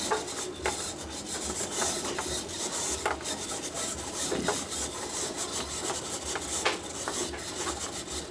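A marble rolling around a wooden labyrinth maze board, a steady rolling rasp with scattered sharp clicks as it knocks against the wooden walls and other marbles.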